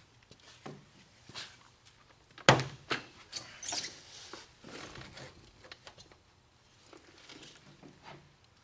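Scattered light knocks, taps and scrapes of a hand tool being handled against a bare steel car door panel, with one sharper knock about two and a half seconds in.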